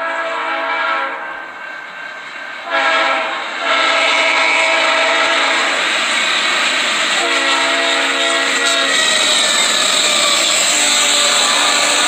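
Freight locomotive's air horn blowing a series of long blasts, a chord of several held tones, as the train approaches and passes close by. The rumble and rush of the train grows underneath from about four seconds in.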